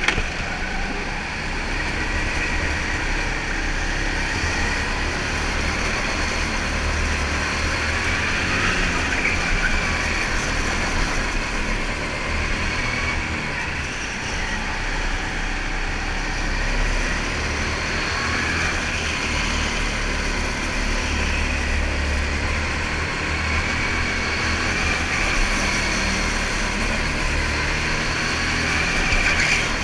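Indoor rental go-kart running at speed on a lap, heard from onboard: a steady motor and rushing noise that rises and falls gently as the kart speeds up and slows, with a low rumble swelling now and then.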